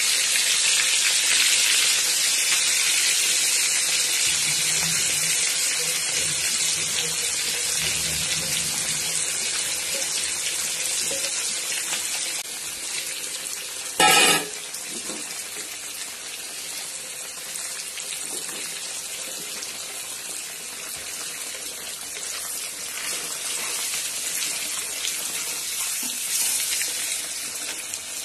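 A whole block of paneer frying in hot oil in a kadai: a steady sizzle that slowly gets quieter, with a short louder burst about halfway through.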